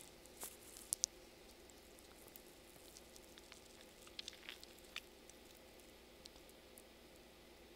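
Near silence: faint room hiss with a few soft, short clicks, a couple about a second in and a small cluster around four to five seconds in.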